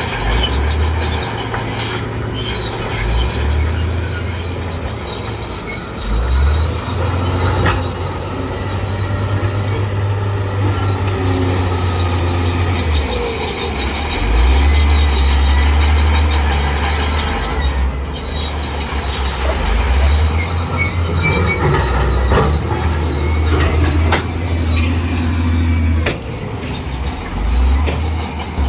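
Crawler bulldozer at work: a deep diesel engine rumble that swells and drops, with high metallic squeals and clanks from its steel tracks.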